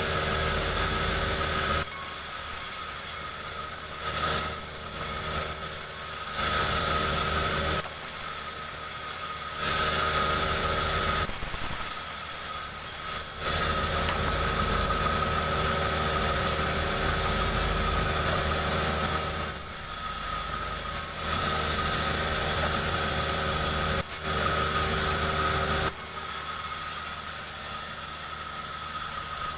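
Chainsaw ripping a jengkol log lengthwise, the engine repeatedly swelling loud and dropping back as the cut loads and eases.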